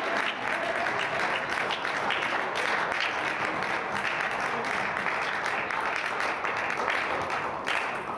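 Spectators clapping, with voices underneath; the clapping dies away near the end.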